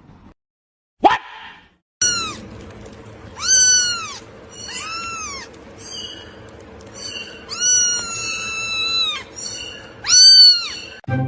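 A cat meowing over and over: four loud, drawn-out meows that rise and fall in pitch, the third one held longest, with a couple of fainter meows between them over a steady low background hum.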